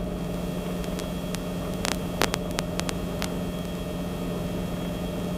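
Cabri G2 helicopter's piston engine and rotors running steadily in cruise, heard inside the cockpit as an even drone with a low hum. A few short clicks come about two and three seconds in.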